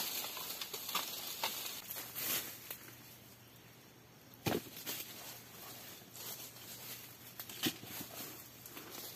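Scattered rustling and crackling of leaves and twigs with footsteps, with one dull thump about four and a half seconds in.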